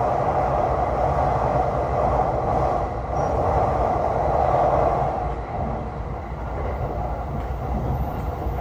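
Tokaido Line electric commuter train running along the track, a steady rumble and rail noise heard from inside the carriage, easing a little just past the middle.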